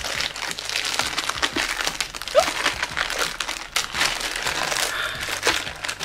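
Packaging crinkling and rustling with many small crackles as a mailed package is opened by hand.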